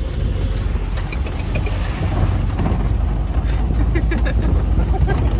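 Land Rover Series 3's 2.25-litre petrol engine running steadily as it drives along a rough dirt track, a heavy low rumble heard from inside the open cab.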